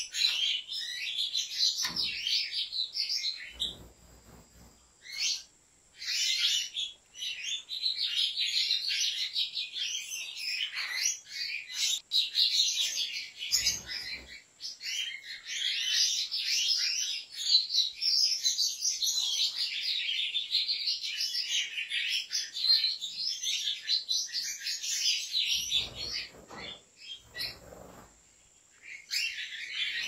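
European goldfinches singing: a dense, nearly continuous twittering song, pausing briefly about four seconds in and again near the end. A few low thumps sound during the pauses.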